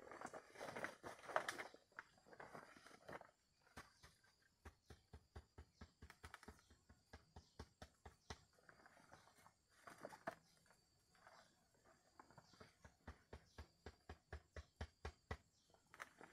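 Rustling of a heavy tarp bee suit at first, then a long run of soft, rapid thuds, about three or four a second, as gloved hands dig at the loose soil over a ground-wasp nest.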